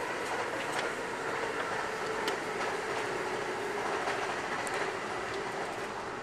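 Passenger train rolling along, heard from inside the coach: a steady rush of wheel and rail noise with a faint even hum and a few sharp clicks.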